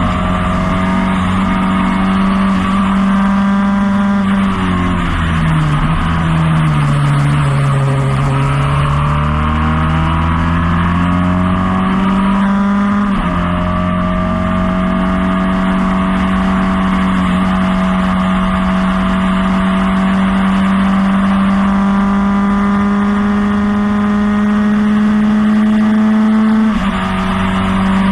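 1977 Lola T440 Formula Ford's 1600 cc four-cylinder engine at racing revs, heard from the cockpit. The note drops for a few seconds as the car slows for a corner, then climbs steadily under full throttle. There is a short break in it about halfway through and a sharp drop near the end, as at upshifts.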